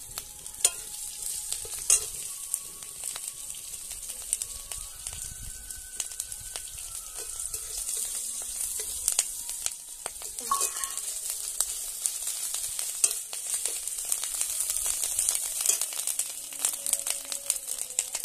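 Green chillies frying in hot oil in a metal kadai: a steady high sizzle with many small sharp pops, and a metal spatula stirring and scraping them.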